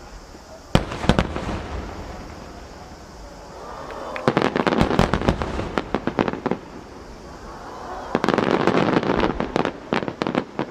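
Large 12-inch (size-10) aerial firework shells bursting overhead. A single sharp bang comes about a second in, followed by two spells of rapid, overlapping bangs and crackles, one around the middle and one near the end.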